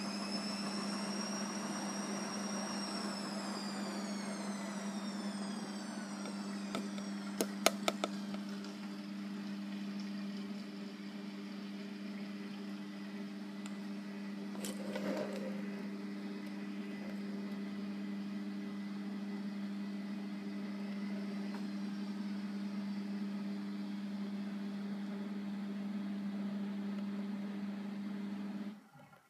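A steady low hum with higher tones sliding downward over the first few seconds, and a few sharp clicks about eight seconds in. The hum cuts off suddenly near the end.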